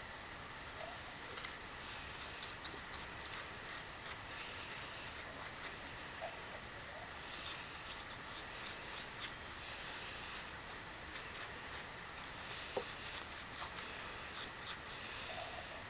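Small hand work: two runs of light, sharp clicks with bits of scraping and rubbing, over a steady hiss.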